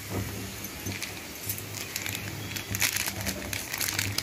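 Metal spatula scraping and clicking against an aluminium kadai while stirring a thick masala paste, over a low hum. Near the end, crackling clicks as a spice packet is crinkled and shaken over the pan.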